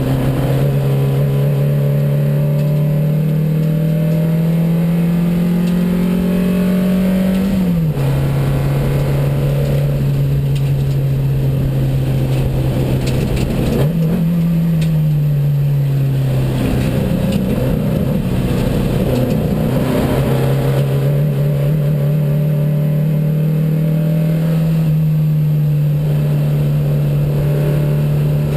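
Engine of a 1972 Porsche 914 IMSA widebody race car, a 2270cc flat-four, heard from inside the cabin while driven hard on track. The revs climb and then drop sharply about eight seconds in, at an upshift. They jump up and fall away around fourteen seconds in, then pick up and climb steadily again from about twenty seconds in.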